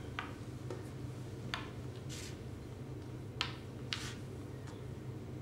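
Xiangqi pieces being picked up and set down on the board: a handful of short, light clicks over a steady low hum.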